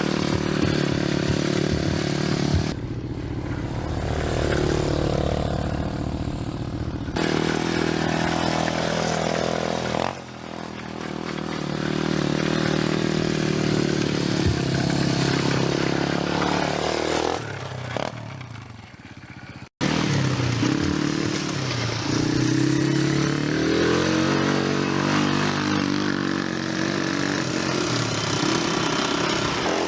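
ATV (four-wheeler) engines running and revving, pitch rising and falling with the throttle, in several short stretches that change abruptly, with a brief drop-out just before the last one.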